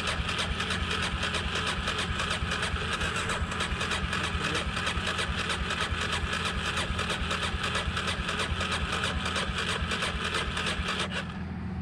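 Suzuki DR-Z motorcycle's single-cylinder engine going steadily with an even pulsing beat, cutting off abruptly near the end.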